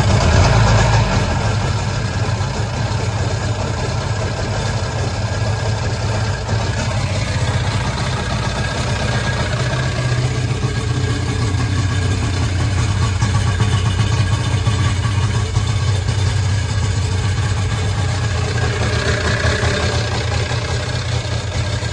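Sea-Doo GSX jet ski's two-stroke Rotax engine catching and running steadily at idle out of the water, then shutting off after about twenty seconds. The buyer hears a bad metallic sound in it that he takes as a sign of a needed full rebuild, while the seller puts it down to the jet pump running without water.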